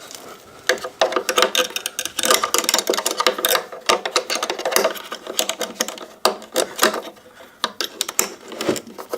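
Garbage disposal mounting ring being worked into place under the sink: rapid, irregular clicking and knocking of the hardware that goes on for several seconds.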